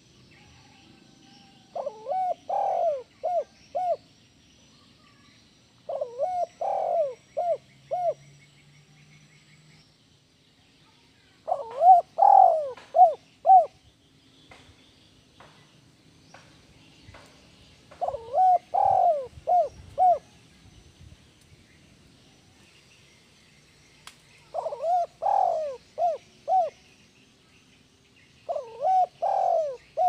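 Spotted dove cooing: about six phrases, one roughly every five seconds, each a short run of rolling coos ending in a few clipped notes. Faint twittering of other birds in the background.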